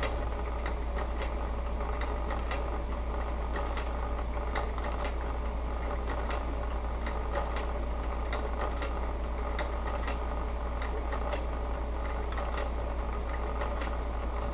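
Industrial sewing machine stitching thick leather slowly, a steady low hum under irregular clicks of the needle and feed, about one or two a second.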